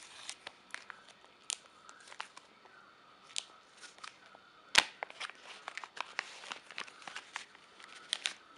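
A plastic zip-lock bag and bubble wrap crinkling and crackling as they are handled, with scattered sharp clicks throughout and one louder snap about halfway through.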